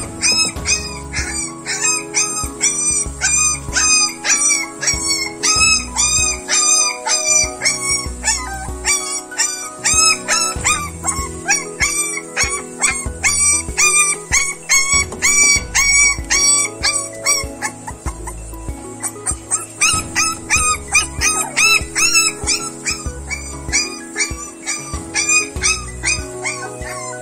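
Young puppies whimpering and yelping in rapid high-pitched cries, several a second, while being bathed and towel-dried, over background music with a pulsing beat. The cries let up briefly about two-thirds of the way through.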